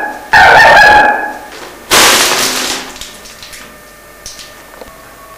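Two loud, distorted honks, each about a second long on a steady pitch, followed about two seconds in by a sudden harsh burst of noise that fades out over about a second.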